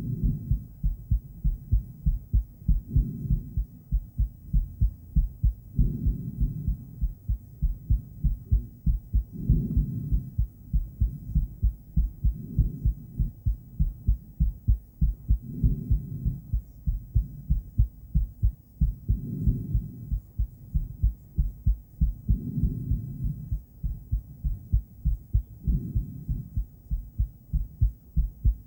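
A woman's heartbeat picked up by a handheld ultrasonic device: a steady run of rapid, low-pitched whooshing pulses that grow louder and softer about every three seconds.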